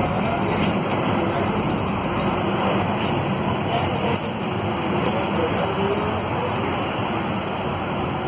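Interior noise of a Volvo B9SALF articulated bus under way: its Volvo D9A diesel running steadily, with road and traffic noise.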